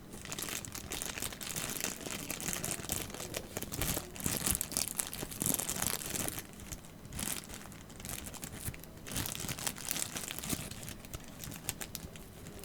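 Keyboard packaging crinkling and rustling as it is handled, in uneven spells with a few soft knocks, loudest in the middle.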